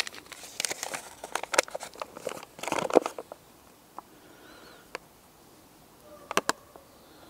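Paper flour bag being handled and opened, crinkling and crackling for about three seconds, then quieter with a few light ticks and two sharp clicks near the end as the flour is poured.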